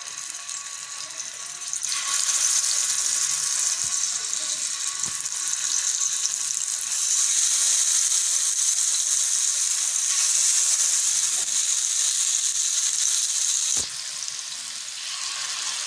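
Masala-coated boiled egg halves sizzling in hot oil on a dosa tawa. The sizzle swells about two seconds in and eases somewhat near the end.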